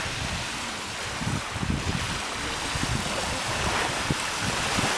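Wind gusting on the microphone, an uneven low rumble, over the lapping of choppy lake water.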